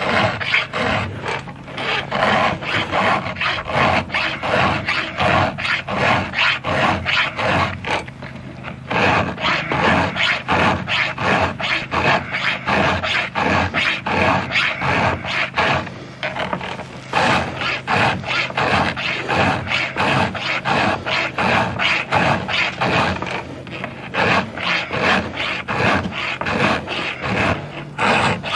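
A file scraping in quick, rhythmic strokes across a dull chainsaw chain's cutters as it is sharpened by hand, with a few short pauses between runs of strokes.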